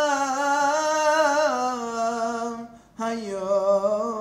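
A man's solo voice chanting Torah cantillation in the Constantine Jewish tradition, drawing one syllable out into a long ornamented melody. The pitch steps down partway through, and a short breath comes about three seconds in before the melody carries on lower.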